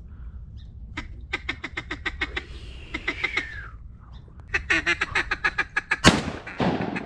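Ducks quacking in two rapid runs, with a falling note between them. About six seconds in, a shotgun fires loudly, and a second report follows about half a second later.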